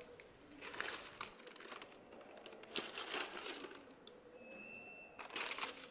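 Tissue wrapping paper rustling and crinkling as sneakers are lifted out of a shoebox. The crinkling comes in irregular spells and is loudest near the end.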